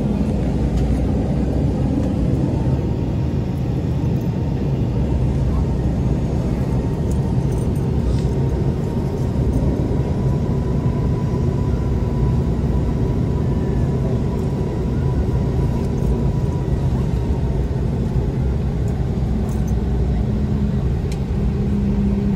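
Cabin noise of an Embraer E190 taxiing: its GE CF34 turbofans at low taxi power give a steady low rumble with a faint high whine through the middle.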